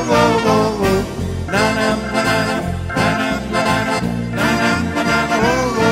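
Instrumental break of a German Schlager song: a brass-led dance band with trombone and trumpet playing the melody over a steady beat, with sliding notes.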